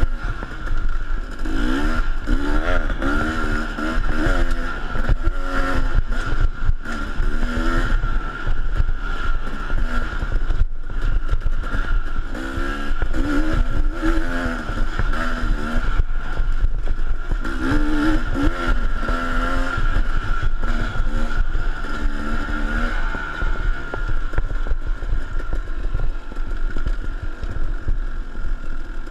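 KTM dirt bike engine under hard riding, its pitch rising and falling again and again as the throttle is worked and the gears change, over heavy low wind rush on the microphone.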